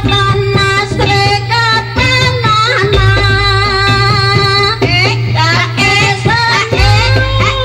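Jaranan accompaniment music: a high melody that slides and bends in pitch over busy drumming, with a deep low stroke about every four seconds.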